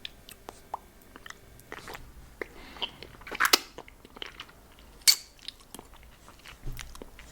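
Mouth sounds on a lollipop: scattered wet clicks and smacks, with louder ones about three and a half and five seconds in.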